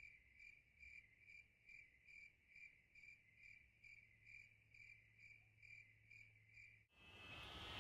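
A cricket chirping faintly in an even rhythm, about two short, clear chirps a second. The chirping cuts off suddenly about seven seconds in, and a louder rushing noise takes over.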